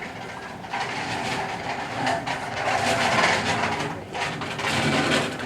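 Hospital corridor ambience: a rolling, clattering noise grows louder about a second in, peaks midway, dips briefly and swells again near the end.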